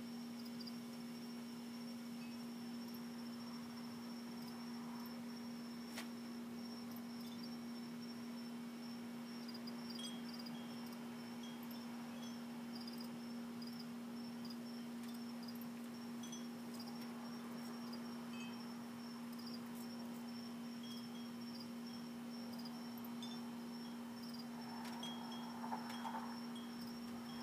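Crickets chirping in intermittent rapid trills over a steady low hum, with a brief soft noise near the end.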